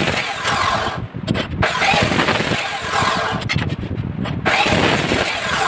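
Abrasive cut-off chop saw grinding through square steel tubing, a loud harsh grinding in three stretches with short breaks between cuts.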